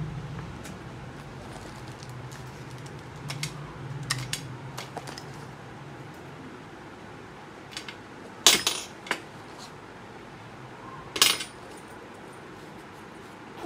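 Handling noises as the parts of an electric duck-call kit are unpacked over a glass table: scattered small clicks and rustles, with two louder clinks and clatters in the second half. A low hum runs through the first few seconds.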